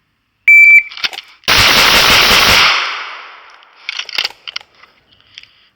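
Shot-timer beep, then a few clicks as the pistol is drawn, and about a second later a stock Glock 17 9mm fires a bill drill: six rapid shots run together over just over a second, followed by a fading echo.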